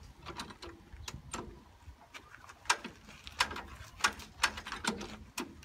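Starting crank of a 1930s Fordson tractor being swung by hand, giving sharp, irregular clacks about once or twice a second, loudest in the second half. No engine rhythm builds up: the cold engine turns over without firing.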